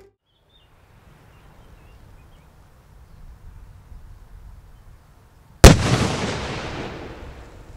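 A single sharp blast of a small dynamite charge detonated on the gravel floor of a quarry, with its echo dying away over about two seconds. Before it, only a faint outdoor background.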